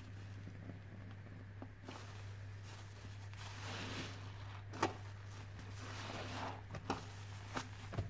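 A soaked sponge squeezed and pressed in thick dish-detergent foam, with wet squelching and crackling that swells about three and a half seconds in and again around six seconds, broken by a few sharp clicks. A steady low hum runs underneath.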